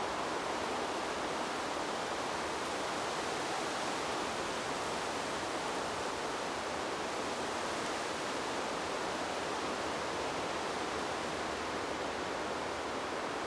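Wind blowing steadily through trees, a continuous even rush of moving air and leaves.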